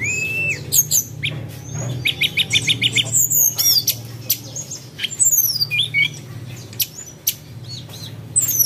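Birds chirping, whistling and squawking, with many quick rising and falling calls and a fast run of repeated notes about two seconds in, over a low steady hum.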